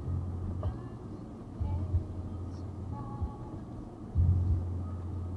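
Car cabin noise picked up by a dash cam: a steady low rumble, with a deeper hum that comes and goes in stretches of a second or two.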